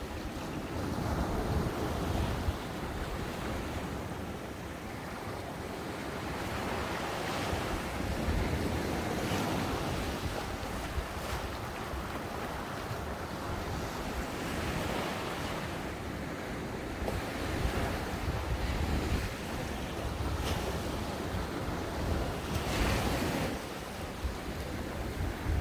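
Ocean waves breaking and washing up the beach, the surf swelling and easing every few seconds, with wind buffeting the microphone.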